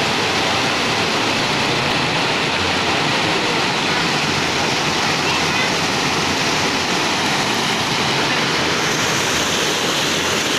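Spring water rushing down a small rocky cascade: a steady, unbroken splashing rush.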